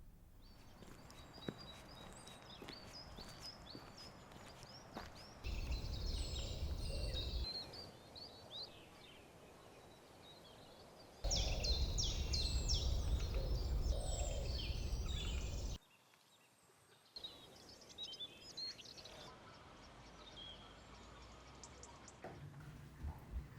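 Wild birds chirping and singing in several spliced outdoor recordings, with abrupt cuts between them. Twice, a low rumbling noise comes in loudly under the birdsong, then cuts off.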